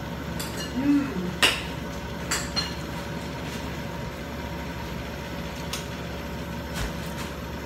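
Steady kitchen hum with a handful of sharp clicks and knocks of dishes and utensils, the loudest about one and a half seconds in.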